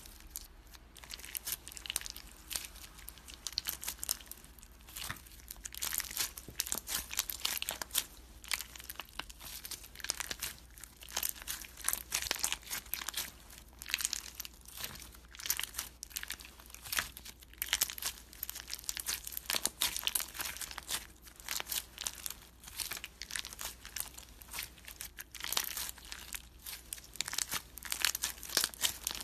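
Clear slime with mixed-in pieces being squeezed, pressed and stretched by hand, giving dense crackling, crinkling and sharp little clicks in quick, uneven flurries.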